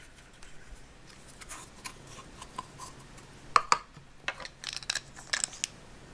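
Small clicks and taps of plastic toy parts being handled: a Play-Doh Plus tub and a pink plastic whipped-cream maker tool with its green cap being fitted together. The clicks are sparse at first, with sharper ones about three and a half seconds in and a quick cluster a second later.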